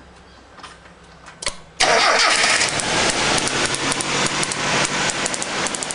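A car engine starts abruptly about two seconds in and keeps running. Over it comes a rapid, even crackle of ignition sparks snapping from a loose ignition coil to an earthed spark plug.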